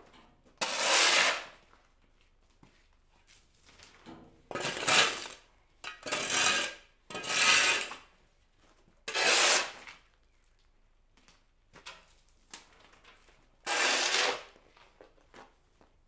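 Shovel blade scraping across a concrete slab as it scoops up dirt, six rough scrapes at uneven intervals with faint knocks and rattles between.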